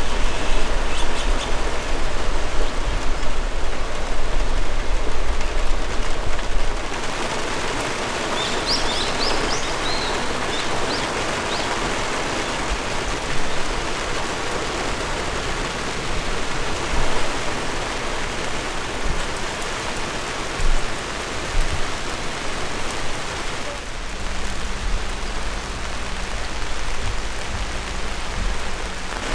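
Steady rain falling on forest trees, with a low rumble underneath for the first several seconds. A few short bird chirps come through about eight to ten seconds in.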